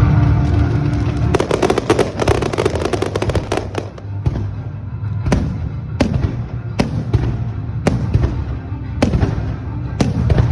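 Fireworks display: a dense stretch of rapid crackling, then a series of sharp bangs about once a second over a steady low rumble. Music with held tones plays at the start and stops as the crackling begins.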